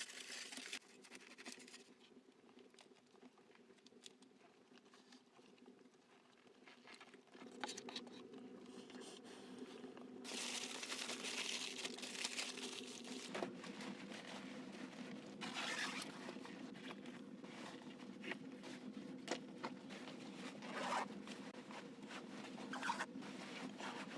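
Scattered crunching, rustling and clicking handling noises, with a faint steady hum joining about seven seconds in.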